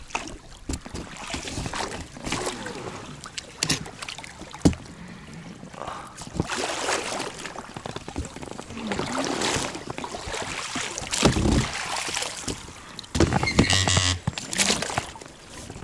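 A small boat being worked along a river by hand: irregular paddle or oar splashes in the water, with scattered knocks and scrapes against the boat. The louder stretches of splashing come in three spells.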